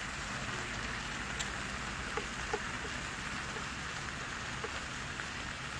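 Gochujang-marinated pork shoulder and cabbage sizzling steadily on a hot stone griddle, with a few small pops and ticks between about two and five seconds in.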